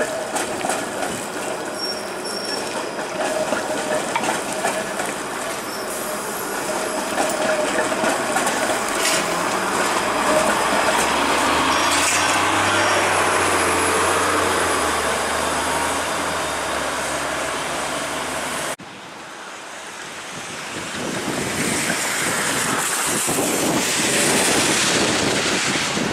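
Toronto Flexity Outlook low-floor streetcar running past on wet street rails in the rain, mixed with the hiss of wet traffic; a thin high whine sounds in the middle. The sound cuts off abruptly about two-thirds through and picks up again with wind rumbling on the microphone.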